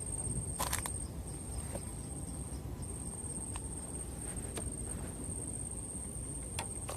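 An insect trilling one steady, high, thin note with a few brief breaks, over a low outdoor rumble, with a few short clicks.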